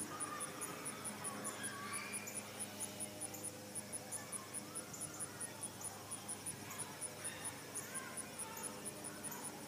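Insects chirping in a steady rhythm: very high-pitched pulses about four a second, with a second, slower pulse beneath them. Scattered short bird chirps come and go.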